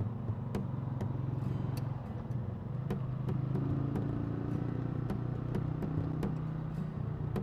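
Motorcycle engine running steadily under way, a low hum that lifts slightly in pitch about halfway through, with sharp ticks scattered throughout.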